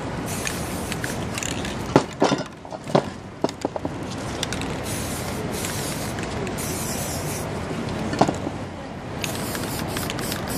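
Aerosol spray-paint cans hissing in several short bursts, with a cluster of sharp clicks and knocks about two to four seconds in and another knock a little past eight seconds, over steady street noise.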